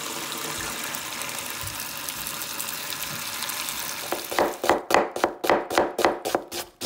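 Tap water running steadily onto peeled onions in a metal colander. About four seconds in it gives way to a knife slicing through onions on a cutting board, about four cuts a second.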